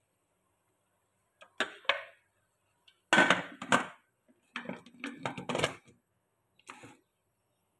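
Metal clattering on an aluminium pressure cooker: a spatula knocks and scrapes against the pot, then the lid clanks as it is fitted on and closed. The sound comes in four short clusters of clanks with pauses between.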